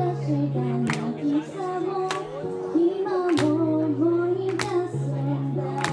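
Pop song with a young woman's voice singing the melody through a microphone over a backing track, with held low notes and a sharp drum hit about every second and a quarter.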